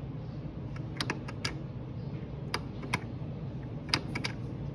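Sharp plastic clicks of a push button on a prototype's plastic enclosure being pressed repeatedly, about eight clicks in irregular pairs and threes, over a steady low hum.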